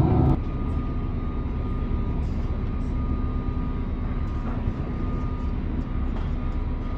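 Steady low mechanical rumble with a faint, steady hum over it. A louder hum made of several steady tones cuts off abruptly a fraction of a second in.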